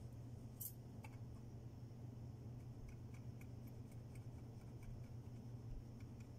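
Wax crayon on paper while colouring, heard as a few faint ticks and one brighter click over a steady low hum.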